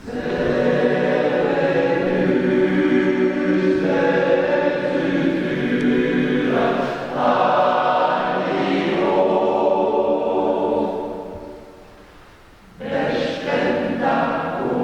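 Choir singing in several parts with many voices holding long notes. The singing fades out about eleven seconds in and a new phrase comes in strongly a second and a half later.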